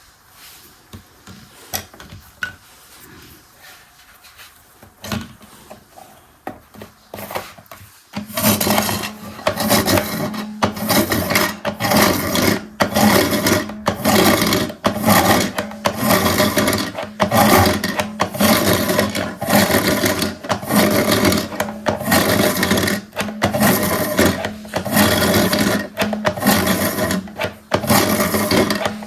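Small plastic toy washing machine working: a few light clicks and handling sounds, then about eight seconds in a loud, rhythmic grinding, rattling churn starts with a steady low hum beneath it and keeps going.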